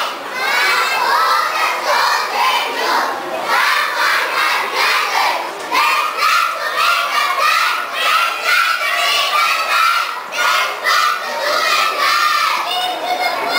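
A group of young schoolchildren shouting and chanting together in unison, many voices at once, phrase after phrase.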